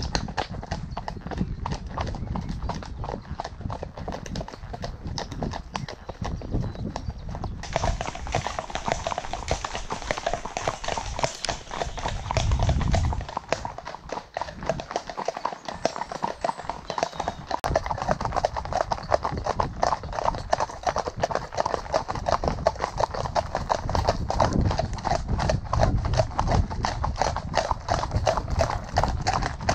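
Horses' hooves clip-clopping steadily as several ridden horses move together in a group. From about a third of the way in, once the horses are on a tarmac lane, the hoofbeats turn sharper and brighter.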